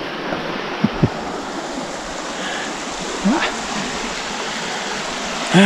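Opalescent River rapids rushing over rocks, a steady loud whoosh of water close by. A few brief voice sounds from the hiker come through, the last at the very end.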